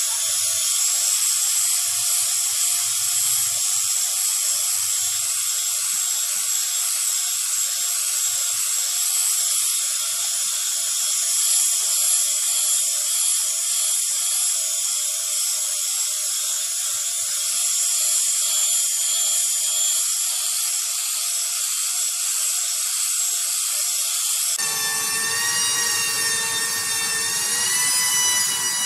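A power tool running steadily with a high, hissing whine. About 25 seconds in the sound changes to a wavering whine with several pitches.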